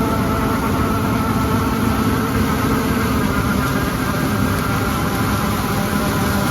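Large farm machine's diesel engine running at a steady speed, a constant drone with no change in pitch.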